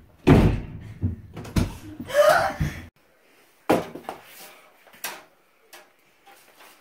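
Rumbling handling and movement noise with a brief voice, then after a short pause two sharp knocks or thumps, about a second and a half apart.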